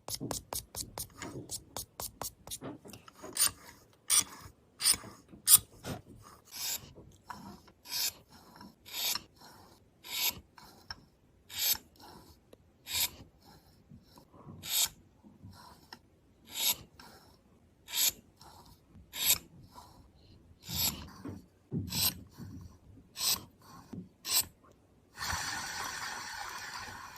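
Repeated rasping, scraping strokes, fast at first and then about one a second, ending in a steady scrape that lasts about two seconds.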